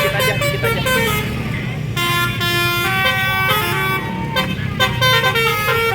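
Basuri telolet multi-tone bus horns playing a tune of short and held notes that jump from pitch to pitch, over the steady low running of bus engines.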